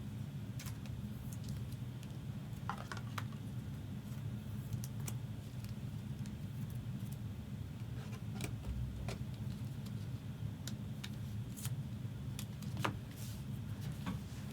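Trading cards being handled: scattered light clicks and ticks as cards are slid and flipped. A steady low hum runs underneath.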